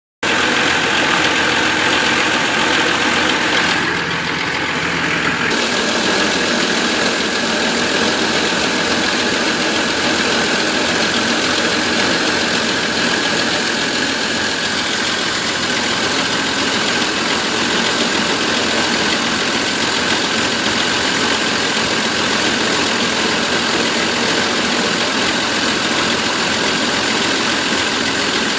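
Van engine idling steadily with a misfire.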